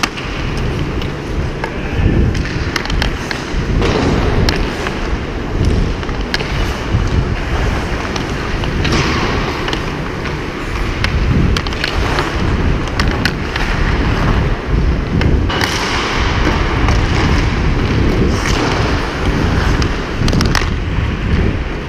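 Hockey skates scraping and carving on the ice, with many short knocks of the stick on the puck, over a steady low rumble.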